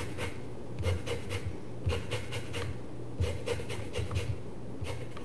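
A lemon being rubbed across a microplane zester, grating off zest in a run of quick, uneven rasping strokes, about two or three a second.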